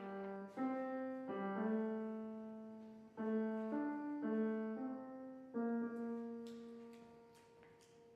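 Piano playing a slow, short phrase of notes struck one after another. The last note rings on and fades away.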